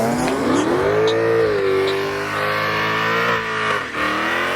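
Performance car engine revving hard: its pitch climbs, holds high, and drops sharply twice, about a second and a half in and again near the end, before climbing again.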